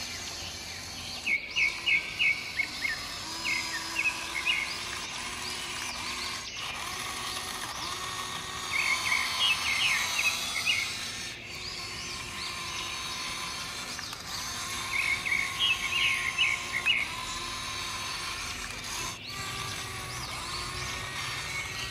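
A songbird singing a short phrase of quick high chirps, repeated about every six seconds, over steady outdoor background noise with a faint steady hum.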